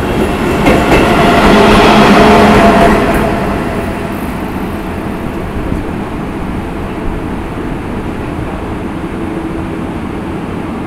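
Deutsche Bahn Intercity coaches rolling past close by. The rumble, with a steady whine over it, is loudest in the first three seconds, then falls to a lower, steady rumble as the train moves on.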